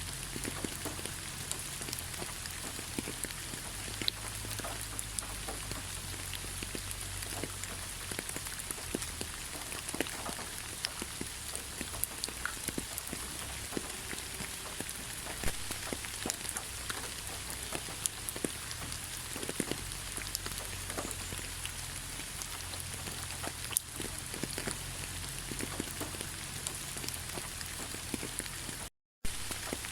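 Steady rain falling, a continuous hiss with many separate drops ticking through it, cut off by a brief gap of silence near the end.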